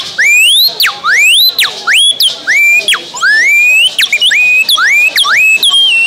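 Pataxó bird-call whistle blown to imitate the smooth-billed ani (anu-preto): a quick string of rising whistled glides, each sweeping upward and then dropping off sharply.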